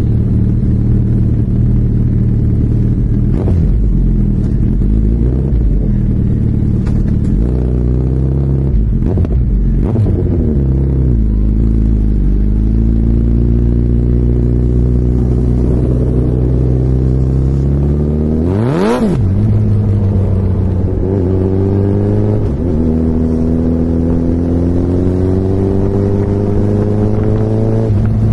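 Suzuki Hayabusa's inline-four engine under way, its pitch climbing slowly through each gear and dropping at the shifts, with a quick rev that rises and falls sharply about two-thirds of the way through. A few short sharp cracks from the exhaust come between.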